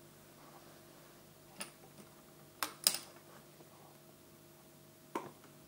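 Short plastic clicks of buttons being pressed on a fireTEK FTM-99Nx firing-system controller's keypad: one press about a second and a half in, two close together near the middle, one near the end. A faint steady electrical hum lies under them.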